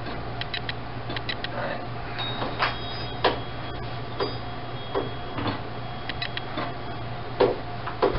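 Scattered clicks and clinks of kitchen utensils and dishware being handled, a few ringing briefly like metal on ceramic, with two louder knocks near the end. A steady low hum runs underneath.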